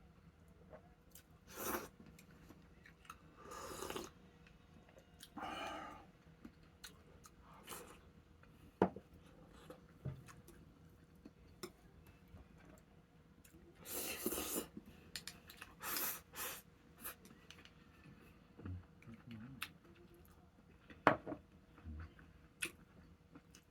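A person eating at the table: scattered short bursts of chewing noise, with a few sharp clicks of tableware, over a faint steady hum.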